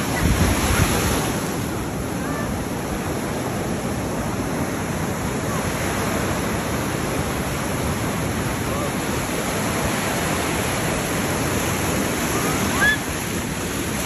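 Ocean surf breaking and washing through shallow water: a steady rush, swelling louder in the first second or two.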